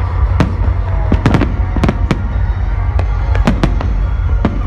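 Fireworks going off: about a dozen sharp bangs at uneven intervals, over loud music with a heavy, steady bass.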